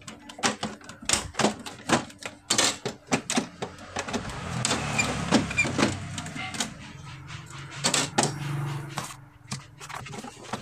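Plastic clicks, knocks and rubbing from the housing of an Epson L3210 ink-tank printer as its scanner unit is pressed shut and hands work at the front of the machine, with a rougher stretch of scraping through the middle.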